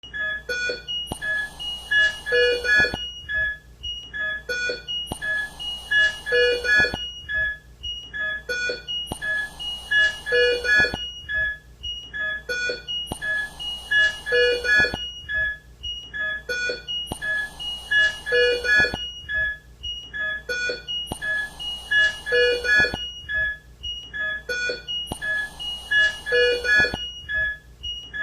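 ICU ventilator and patient-monitor sounds: clusters of electronic beeps with a short hiss, the pattern repeating about every four seconds.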